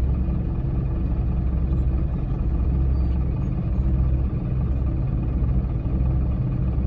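Bulldozer's diesel engine running steadily, a low even rumble with no clear change in speed.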